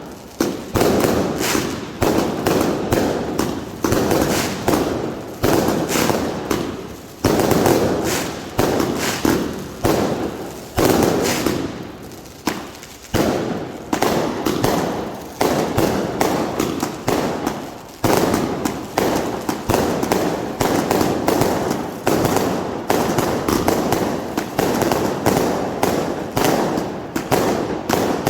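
Category F2 consumer fireworks going off in a rapid, continuous string of bangs and crackles, each report fading before the next, with a brief lull about twelve seconds in.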